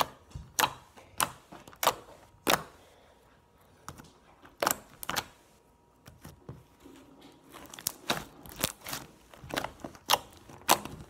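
Fingers poking into soft, sticky glitter glue slime, each poke a short sticky click or pop. There are about five evenly spaced pokes, a pause, then quicker clusters of pokes near the end.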